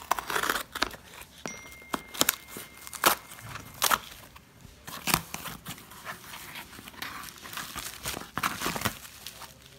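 Cardboard shipping package being slit along its packing tape with a knife and its flaps pulled open: a run of rustles, tearing and sharp cardboard cracks, then the crinkle of plastic wrapping near the end.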